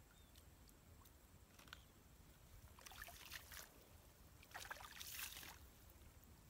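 Faint splashing of hands working in a shallow muddy puddle, in two short bursts about three and five seconds in.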